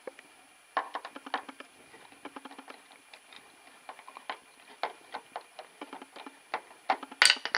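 Irregular light clicks and taps of handling, with a louder clatter of clicks about seven seconds in.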